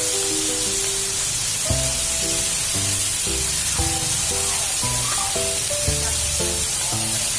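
Food sizzling as it fries in hot oil in a pan, a steady hiss, with background music playing over it.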